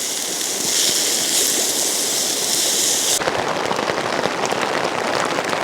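Burger patties and onions sizzling in a pot over a campfire while rain falls. About three seconds in, the sound changes abruptly to heavy rain pattering densely on a tarp shelter.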